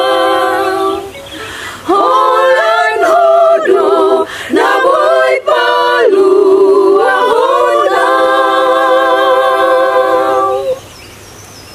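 Women's choir singing a hymn a cappella in several parts: moving phrases, then a long held final chord that breaks off near the end.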